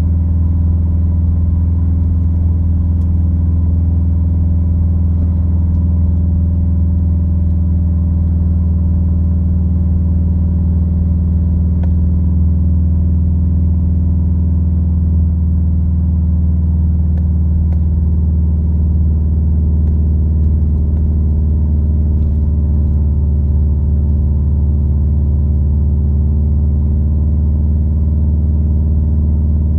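Subaru WRX flat-four engine and Invidia dual N1 exhaust droning steadily, heard inside the cabin at a steady cruise as a deep, even hum. Its tone shifts slightly a little past halfway through.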